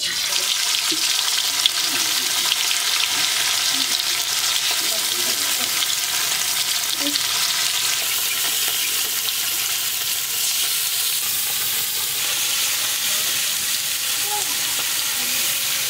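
Spice-coated small fish frying in hot oil in a metal karahi: a steady sizzle as the fish are laid in one by one.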